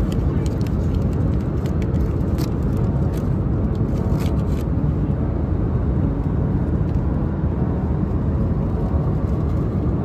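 Airliner cabin noise in flight: a steady, loud rumble of engines and airflow. Over it, aluminium foil crinkles and crackles for the first few seconds as the foil lid of a meal tray is peeled back.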